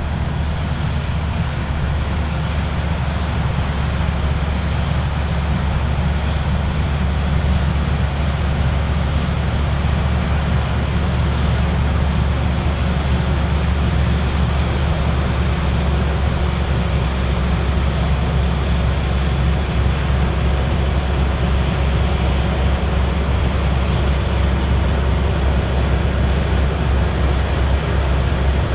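Claas Lexion 780TT combine harvester running steadily while harvesting: a deep, even engine drone with machinery noise over it, unchanging throughout.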